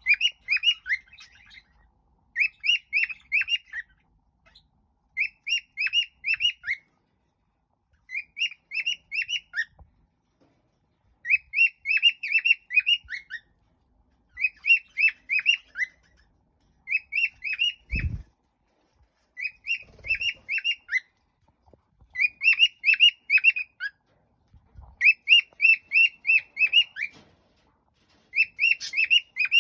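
Cockatiel chirping in repeated bursts of five or six short, quick notes, a burst about every two to three seconds. A dull thump comes about eighteen seconds in.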